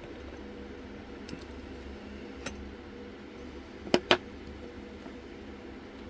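Sharp metal clicks as a euro-profile lock cylinder clamped in a small vise is handled: a couple of light clicks, then two loud ones close together about four seconds in. A steady low hum runs underneath.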